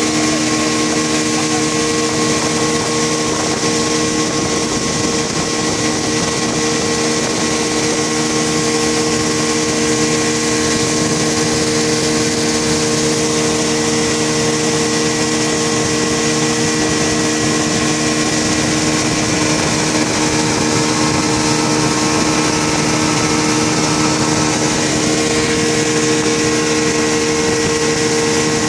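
A motorboat running steadily at speed, heard from on board: a constant engine hum with several steady tones, over the rushing hiss of water spraying off the hull.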